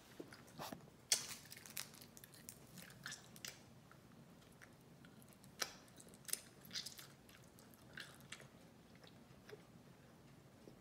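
A child chewing a fresh piece of bubble gum: faint, irregular wet clicks and smacks of the mouth, the sharpest about a second in.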